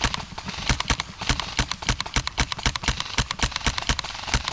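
Running footsteps with loose gear clattering, a quick irregular run of knocks and clicks over dull thumps.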